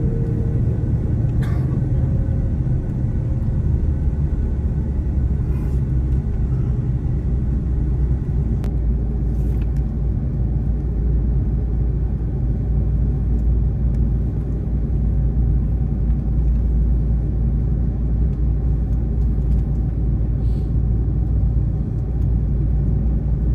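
Steady low rumble inside the cabin of an Airbus A330-200 as it taxis, from the engines at taxi power and the wheels rolling over the taxiway.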